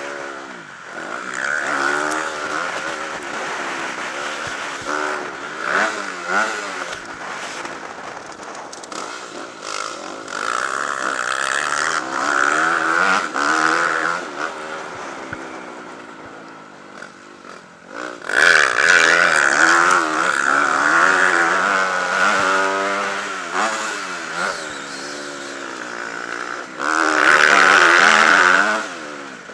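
Dirt bike engine on a motocross track, revving up and down repeatedly as the throttle opens and closes and the gears change. The loudest stretches come about two-thirds of the way in and again near the end.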